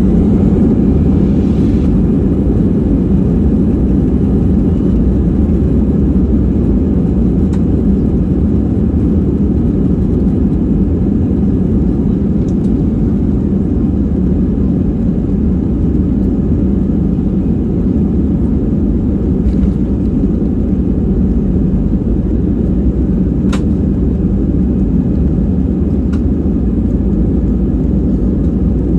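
Cabin noise inside an Airbus A320-200 taxiing: a steady low rumble from the jet engines and the rolling gear, with a few faint clicks or knocks scattered through it.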